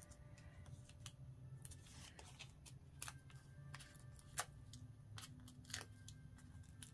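Faint rustling and light ticking of paper scraps and die-cut embellishments being handled and sorted, a scattering of brief taps over a quiet room, the sharpest a little after four seconds in.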